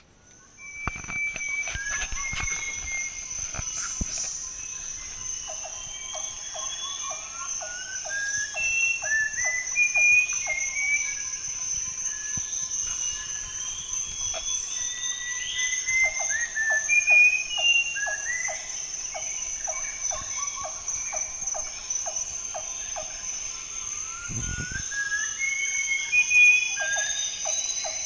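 Instrumental background music: a steady high tone held throughout, short rising melodic phrases, and a ticking beat about three a second that drops out for a few seconds in the middle.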